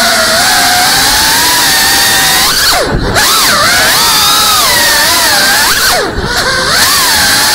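Brushless motors and ducted propellers of a GEPRC CineLog 35 cinewhoop drone whining, heard from its onboard camera. The pitch wavers with the throttle and twice, about three seconds in and again about six seconds in, drops away and then swoops back up, as the throttle is cut and punched again during flips and rolls.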